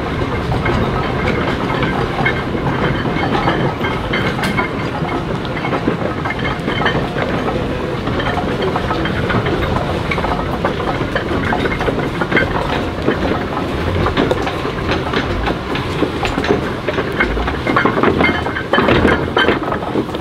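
Steam traction engine driving slowly past at close range: a continuous clatter of many small clicks and knocks from its motion and gearing, mixed with the hiss of steam.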